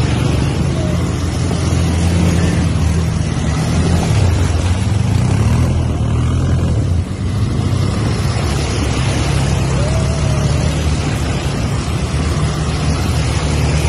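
ATV (quad bike) engines running with a steady low drone while fording a shallow river, with water splashing and rushing around the wheels.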